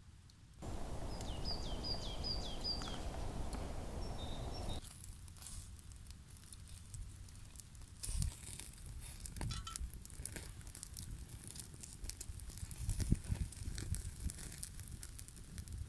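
Wood embers crackling and popping under a kebab spit-roasting over the coals, with dry-leaf rustling. For the first four seconds or so a steady rushing noise covers it, and a bird chirps a few short falling notes about two seconds in.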